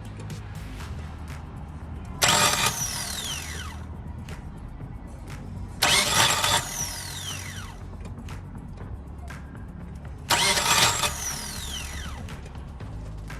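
A 2000 Nissan Altima's starter is cranked three times in short bursts of about a second each, and the engine does not catch. Each burst has a metallic whine that falls steeply in pitch, all over a steady low hum. The owner suspects the starter's Bendix drive or the flywheel ring gear.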